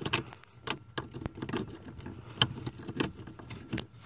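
Irregular small plastic clicks and rattles from hands working the new brake light switch and its wiring plug under the dashboard, with a few sharper clicks among them.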